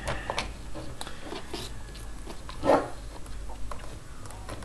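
Small clicks and scrapes of a screwdriver and wire ends being worked into the screw terminals of an electronic halogen transformer, with one short, louder sound a little past halfway through.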